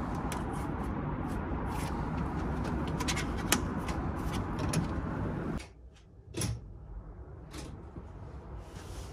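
Hotel room door being unlocked and opened, with a sharp click of the lock about three and a half seconds in. A little past halfway the steady background noise cuts off suddenly, and a single knock follows.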